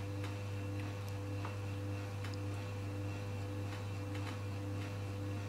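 Steady low electrical hum with a thin steady tone above it and a fainter tone pulsing on and off about twice a second, with a few soft clicks scattered through.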